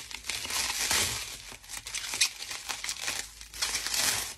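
Plastic bubble wrap crinkling and crackling as hands unwrap a perfume box, in irregular bursts.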